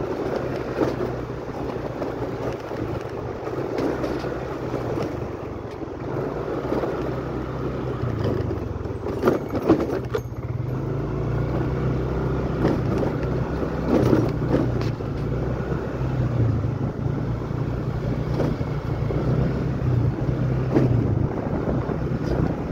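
Small motorcycle engine running at low road speed with a steady low hum, its note rising slightly about ten seconds in, under wind rushing over the microphone.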